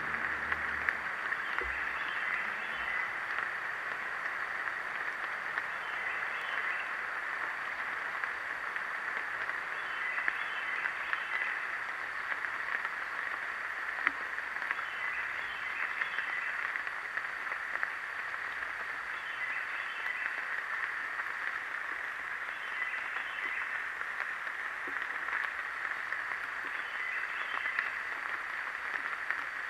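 A steady chorus of frogs calling, held around one pitch, with a short group of higher calls coming back about every four seconds.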